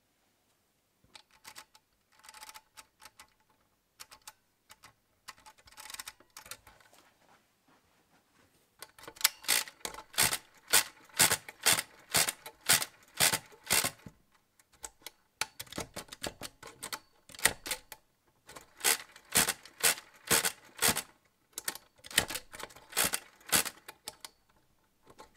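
Walther WSR 16 hand-cranked mechanical calculator working a multiplication. Light, scattered clicking of its setting mechanism comes first, then from about nine seconds in, runs of loud rapid clacking as the crank is turned, about two to three turns a second, in several groups with short pauses between as the carriage is shifted.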